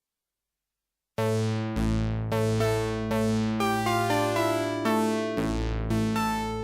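Korg DS-8 four-operator FM synthesizer, heard straight from its line outputs, playing a bright percussive patch: after about a second of silence, struck notes and chords come about twice a second over low bass notes, each attack bright and fading fast.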